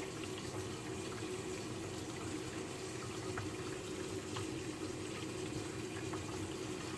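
Tap water running steadily into the sink and down the drain through the garbage disposal, an even rushing with a few faint ticks, while the disposal leaks faster.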